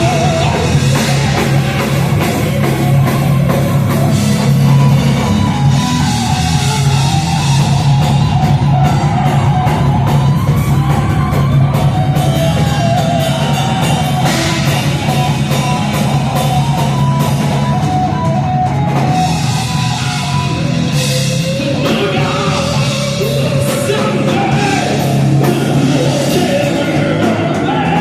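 Live rock band playing heavy rock at full volume: drum kit, bass and guitars, with sung and shouted vocals.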